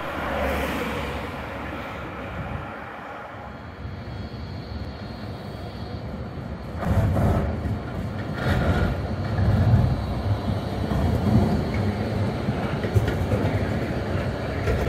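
Tatra KT4D articulated tram running past close by, its wheels rumbling on the rails with the hum of its drive; it grows louder about halfway through as it draws level.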